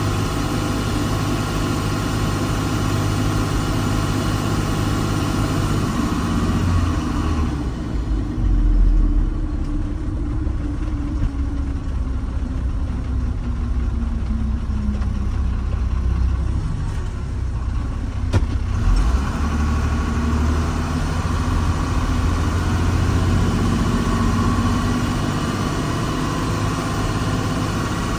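Diesel engine of a piece of earthmoving machinery running. About seven seconds in the revs drop and slowly wind down. There is a single sharp click near eighteen seconds, and the revs come back up about a second later.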